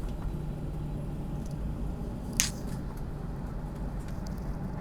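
Steady low hum and rumble inside an Airbus A320 cabin rolling out after touchdown, with one short sharp click about two and a half seconds in.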